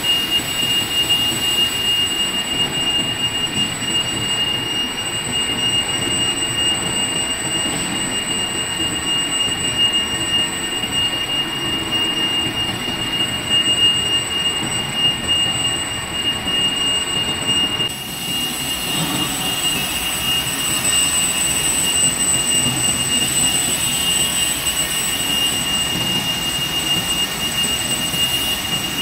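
Metal lathe boring out the inside of a large steel ring: a steady machining noise with a constant high-pitched whine over it. The noise shifts slightly about two-thirds of the way through.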